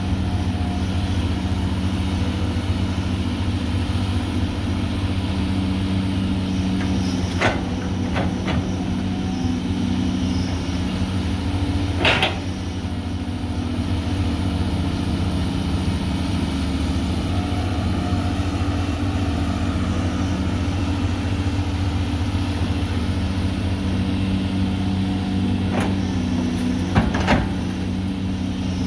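CAT hydraulic excavator's diesel engine running steadily as it digs soil and loads a dump truck, with a few sharp metal knocks from the bucket and boom, the loudest about halfway through and another near the end.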